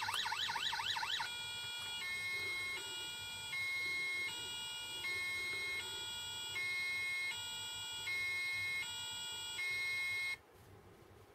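Electronic siren of a scale-model fire engine, first a fast rising yelp of about four sweeps a second, then switching about a second in to a two-tone horn that alternates high and low about every three-quarters of a second. It cuts off suddenly near the end.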